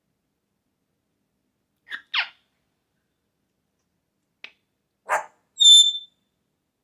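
African grey parrot calling: a short downward-sliding call about two seconds in, a click, a raspy call, and then a loud, clear high whistle near the end.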